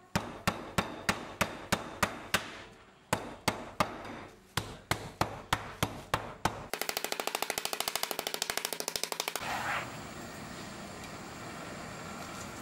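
Metal meat mallet pounding chicken fillets through plastic wrap on a wooden cutting board: two runs of sharp blows about three a second, then a fast, even rattle of quick taps for a couple of seconds. After that the blows stop and only a softer steady sound remains as a knife slices the flattened fillets.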